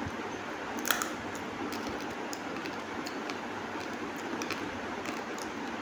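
Close-up eating sounds: a man chewing and picking food by hand off a plastic plate, heard as scattered small clicks and mouth noises over a steady hiss, with a sharper click about a second in.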